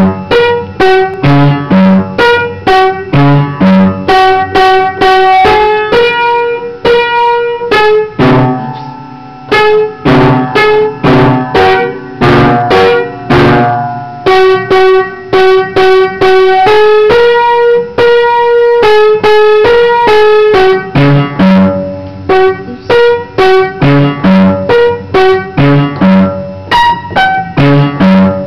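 Gerhard Heintzman upright piano playing a simple beginner's lesson piece: a steady run of struck notes, with fuller, lower passages around a third and half of the way through.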